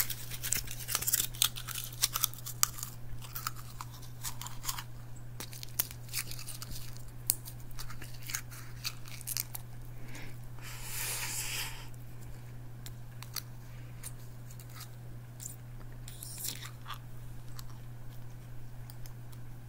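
Foil-and-plastic blister pack crinkling and clicking against teeth as it is bitten and pressed onto them: scattered sharp crackles, with a longer crinkling stretch about halfway through and a shorter one near the end. A steady low hum runs underneath.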